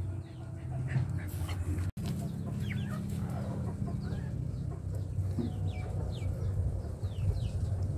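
Chickens clucking in the background: many short, high chirps falling in pitch, repeating through most of the clip, over a steady low hum.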